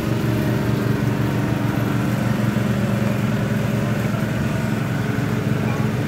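Small engine-driven water pump running steadily, sucking floodwater out through hoses.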